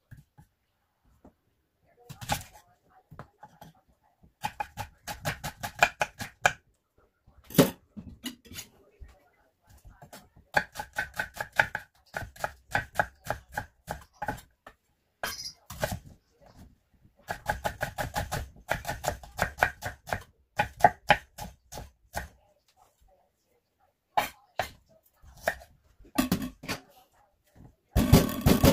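Knife chopping food on a cutting board in quick runs of strokes with short pauses between runs; the densest, loudest run comes near the end.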